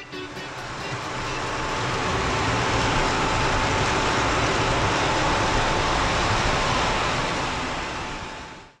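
Lionel O gauge model train running on the layout track, heard from a car riding in the train: a steady rolling rush with a thin steady whine underneath. It builds over the first two seconds and fades out at the very end.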